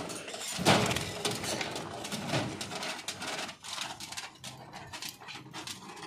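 Caged birds in an aviary: a busy run of short calls and rustles, loudest about a second in, thinning out towards the end.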